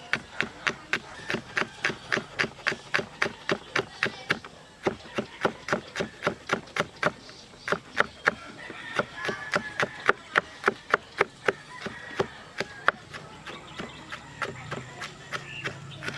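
Knife chopping on a wooden cutting board in a quick steady rhythm, about three to four strokes a second, pausing briefly a few times.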